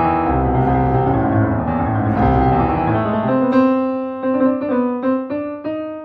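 Piano music: full chords over a low bass for about three seconds, then the bass drops out and single notes are struck one after another, the last one left ringing.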